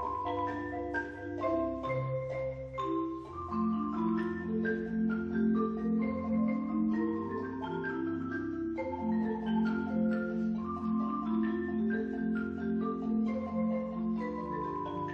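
Music led by marimbas: quick struck notes of a melody and chords over sustained low notes.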